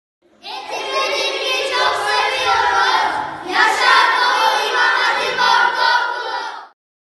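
A group of children's voices together in unison, loud, in two phrases with a short break near the middle, cutting off sharply near the end.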